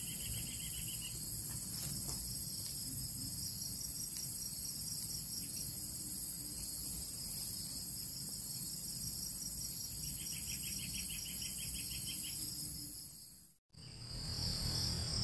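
Steady chorus of insects: a shrill, high, rapidly pulsing drone, with a short trilling chirp at the start and a longer one from about ten to twelve seconds in. The sound drops out briefly near the end.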